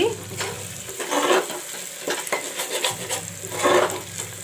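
Chopped onions frying in mustard oil in an aluminium pressure cooker, sizzling steadily while a metal spatula scrapes and stirs them in a handful of irregular strokes. The onions are nearly browned.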